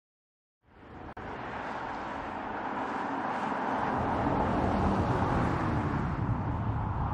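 Audi Q3 driving on an open road: engine and tyre noise that fades in about half a second in and grows steadily louder as the car comes closer.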